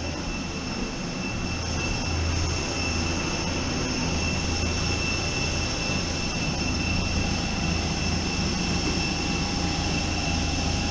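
Steady jet airliner noise: a high whine over a low rumble.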